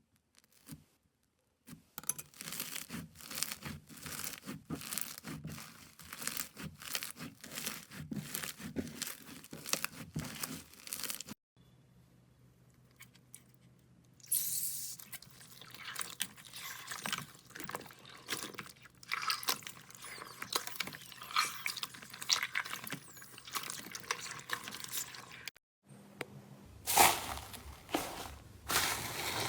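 Slime being squeezed, poked and stretched by hand, giving dense runs of crackling clicks and squelches. It comes in several separate clips with short quiet breaks between them, the first starting about two seconds in.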